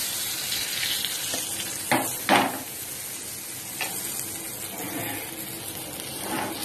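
Flour-coated pomfret fish shallow-frying in oil in a nonstick frying pan: a steady sizzle, with two sharp knocks about two seconds in.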